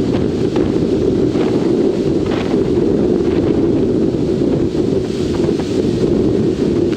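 Strong wind buffeting the microphone: a loud, steady low rumble with a few faint brief rustles above it.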